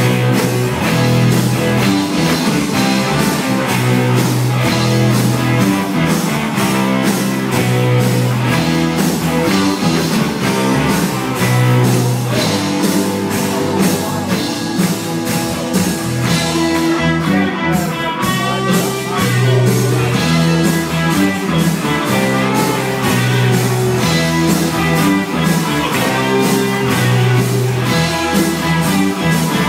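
A large live rock band playing, with electric guitars and keyboards over a steady bass line and beat. A wavering lead line rises above the band about halfway through.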